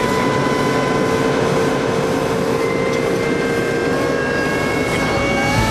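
Steady drone of a Humvee's diesel engine and drivetrain under way, heard from inside the cab, with a constant whine running through the road noise.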